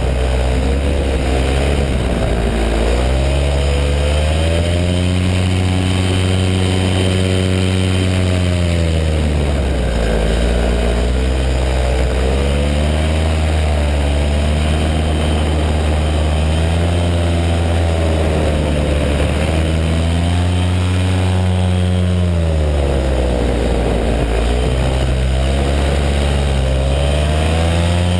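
Paramotor's two-stroke engine and propeller running, loud and continuous. The engine note sinks and climbs back up about four times as the throttle is eased and opened again.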